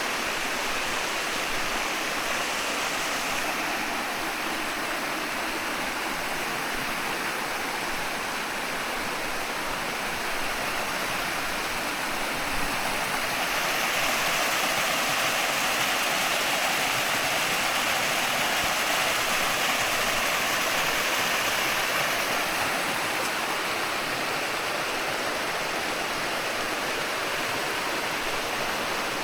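Steady rush of running water, growing a little louder about halfway through.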